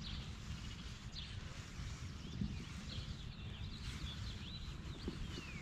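Songbirds chirping: many short calls and gliding whistles, with one longer falling whistle near the end, over a steady low rumble.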